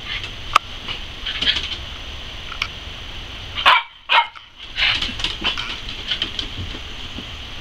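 Small dogs barking and yipping in short, sharp bursts, the loudest pair about four seconds in, dwindling to fainter yips near the end.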